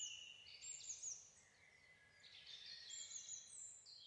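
Faint birdsong: several birds chirping and twittering in short, overlapping high notes over a soft background hiss.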